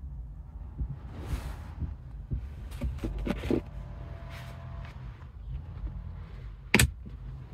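Fingers brushing and scraping over the felt-lined storage compartment and plastic trim of a BMW 530d's centre console, with one sharp click near the end as a lid or latch snaps shut. A steady low hum sits underneath.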